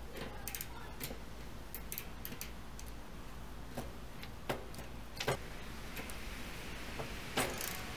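Irregular light metal clicks and taps as a wrench is worked on a bicycle wheel's hub axle, with two sharper clicks around five seconds in and near the end, over a steady low hum.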